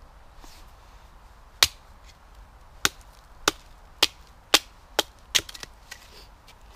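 Hultafors bushcraft axe chopping dead wood into kindling: seven sharp chops, one on its own about a second and a half in, then six in quick succession about half a second apart.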